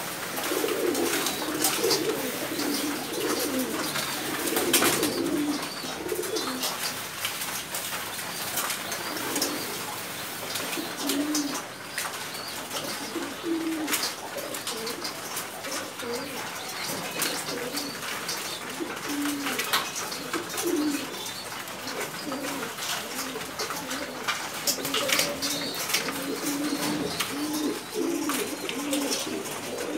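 Domestic pigeons cooing, several birds with overlapping low coos repeating throughout, and scattered sharp clicks among them.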